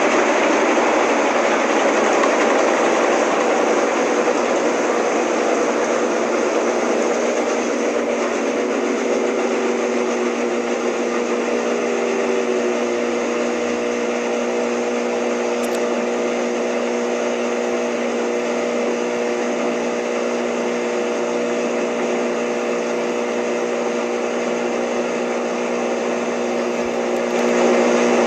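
Washing machine running: a steady rushing noise with a motor hum that glides down in pitch partway through and then holds at one steady pitch.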